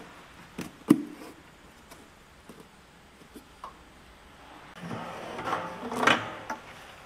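A plastic oil jug handled at the spigot of a boxed bulk-oil dispenser: a sharp click about a second in and a few light knocks, then a louder stretch of rustling and scraping from about five seconds in.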